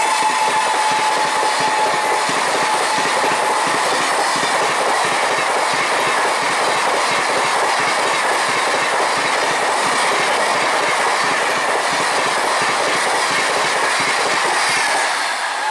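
Express train rushing past at speed, a loud steady roar of coaches with wheels clattering over the rail joints, lasting about fifteen seconds and falling away at the very end. A thin steady high tone sounds over the first few seconds.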